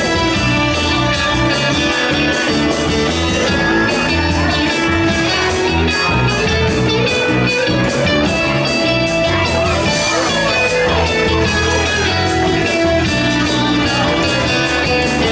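Live rock band playing an instrumental passage: electric guitar leading with bent notes over bass and drums keeping a steady beat, with no singing.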